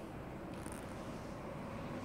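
Quiet, steady background rumble of room tone with no distinct event.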